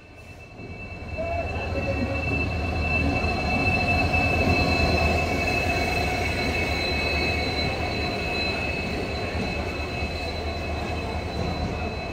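Diesel locomotive and its passenger coaches rolling past close by: a steady low engine rumble and rolling wheel noise, with a thin high squeal held over it. The sound swells over the first couple of seconds, then stays steady and eases slightly near the end.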